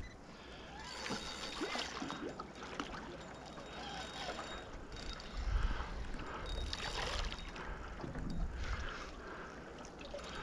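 Water lapping against the hull of a small aluminium boat, with low rumbles of wind on the microphone about halfway through and again near the end.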